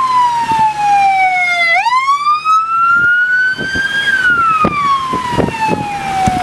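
Electronic emergency-vehicle siren on a slow wail close by: its pitch falls, climbs back up from about two seconds in, and starts falling again about four seconds in. Gusts of wind buffet the microphone in the second half.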